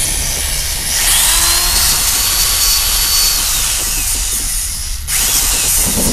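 Loud whirring of a small electric motor with a high whine that rises, holds steady for about two seconds and falls away. It breaks off briefly about five seconds in, then starts again.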